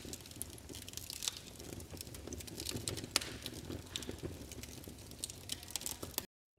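Fire crackling sound effect: quiet, irregular small pops and crackles that cut off suddenly near the end.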